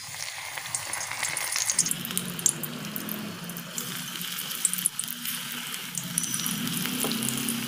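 Spinach and onion pakoras in gram-flour batter sizzling and crackling as they deep-fry in hot oil, more batter being dropped in by hand, with many small sharp pops over a steady hiss.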